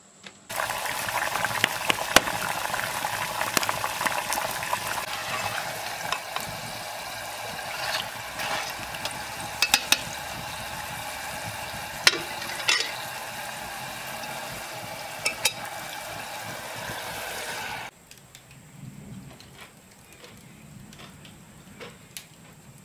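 Spiral-cut potato slices deep-frying in hot fat in a cast-iron pot over coals: a steady loud sizzle with sharp pops now and then. It starts suddenly just after the start and cuts off abruptly about 18 seconds in, leaving only faint sounds.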